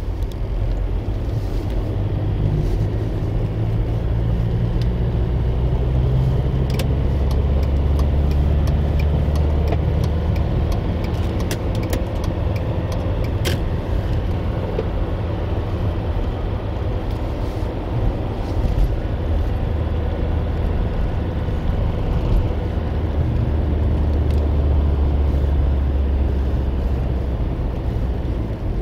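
Car interior noise while driving: a steady low rumble of engine and tyres on the road, with a few small clicks.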